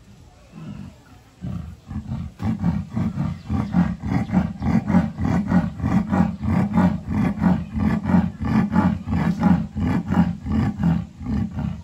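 A leopard giving its sawing call: a long run of rhythmic, grunting breaths in and out, about two or three a second. A few scattered grunts come first, and the call grows loud about two seconds in and carries on until it stops near the end.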